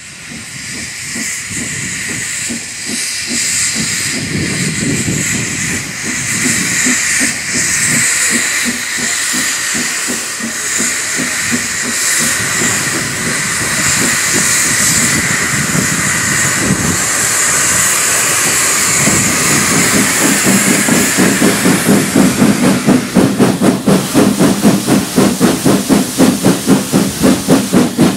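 Austerity saddle tank steam locomotive getting under way: open cylinder drain cocks hiss loudly over uneven exhaust beats. From about twenty seconds in, the exhaust settles into a regular chuffing, about three to four beats a second, as it works along the line.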